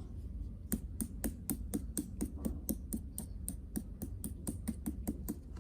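A steady run of short, light taps or clicks, about four a second.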